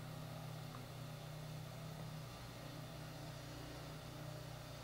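Steady low hum with a faint even hiss behind it.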